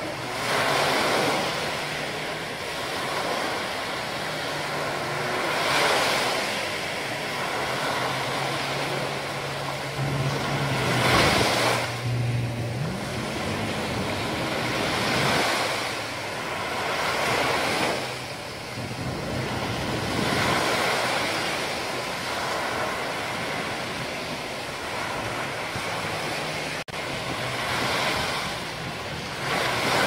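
Small sea waves breaking and washing up a sandy beach, the surf swelling and fading every few seconds. A low hum joins in for a few seconds near the middle, rising in pitch as it fades.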